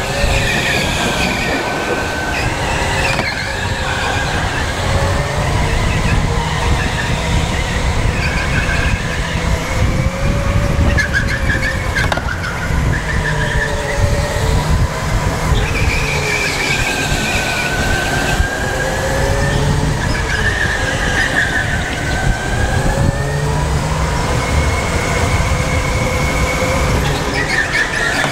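Electric go-kart being driven hard on an indoor track. The motor's whine rises and falls in pitch as the kart speeds up and slows for corners, over a constant low rumble.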